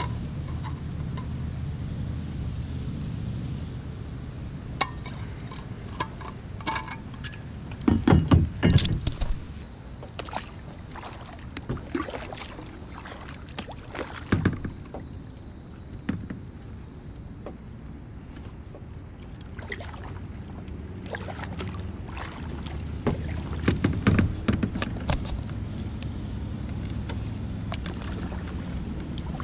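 Kayak paddling: the paddle blades dip and splash in clusters, loudest about 8 and 24 seconds in, over a steady low rumble. A steady high-pitched buzz runs for several seconds in the middle.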